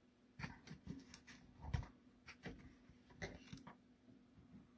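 Faint, scattered clicks and rustles of resin miniature parts being handled and lifted out of a small box.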